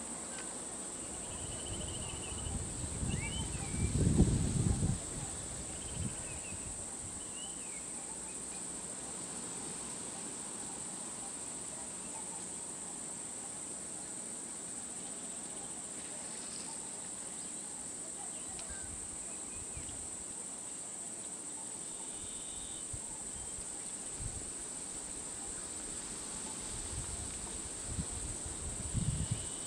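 Steady, high-pitched drone of insects from the roadside forest, with a few faint bird chirps. A low rumble swells about four seconds in and again near the end.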